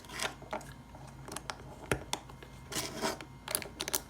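Plastic LEGO pieces clicking and rattling as they are handled and pressed together: a scatter of small clicks, with a sharper knock about two seconds in.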